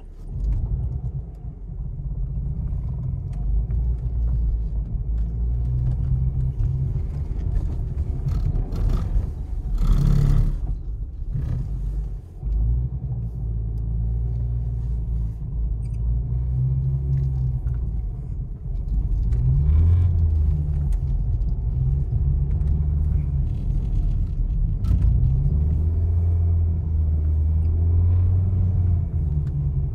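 Mercedes-Benz 200TE (S124) four-cylinder petrol engine heard from inside the cabin, revving up and down repeatedly as the estate slides on snow. A brief rush of noise comes about ten seconds in.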